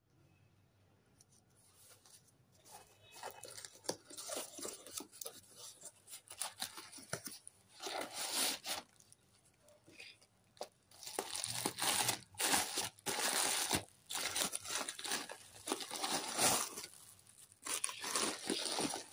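A cardboard parcel and its plastic packaging being torn open and handled: irregular tearing, rustling and crinkling of tape, bubble wrap and plastic film. It starts faint and becomes louder and busier from about seven seconds in.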